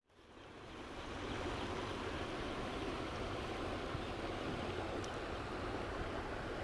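Steady rush of running stream water, fading in over the first second.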